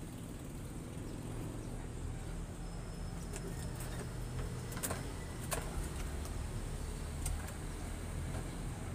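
Steady low rumble under soft rustling and a few sharp clicks as hands work through yardlong bean vines on a trellis, picking pods.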